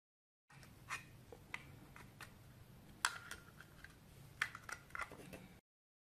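Faint clicks and taps of plastic flashlight housing parts being handled and fitted together, a few irregular clicks, the sharpest about three seconds in.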